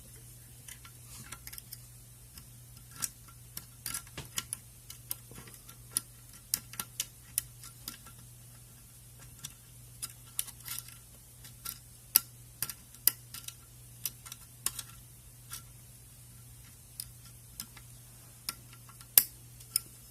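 Small, irregular metallic clicks and ticks of a dimple pick pushing on the pins of an A&B dimple lock as it works up and down the pin stack.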